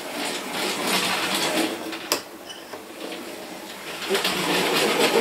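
00 gauge model locomotive's small electric motor running at full speed along the track: a steady, rattly mechanical whirr that gets louder near the end, with one sharp click about two seconds in. The locomotive is not running right.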